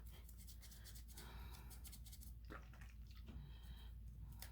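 Near silence: low room hum with a few faint small clicks.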